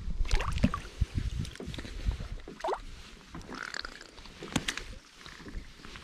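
Shallow river water splashing and sloshing around hands holding a brown trout at the surface as it is released, with irregular knocks and splashes.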